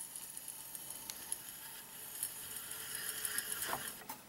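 Read/write heads of an opened Quantum ProDrive ELS hard drive scraping against the platter as the platter is turned slowly by hand. It is a faint, gritty scratching with small ticks that grows a little louder toward the end. It is the sound of a head crash, the heads colliding with the platter surface.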